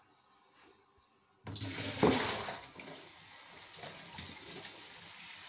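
Kitchen tap turned on about one and a half seconds in, water running steadily into the sink, with one knock just after it starts.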